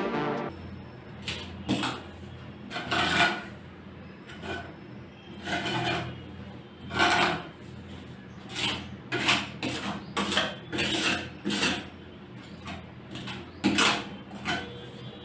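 Putty knife scraping wall putty onto a rough concrete edge in about fifteen short, uneven strokes.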